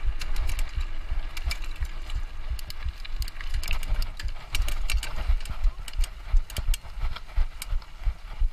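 Mountain bike clattering over rough ground: a rapid, irregular run of sharp clicks and knocks over a low, uneven rumble.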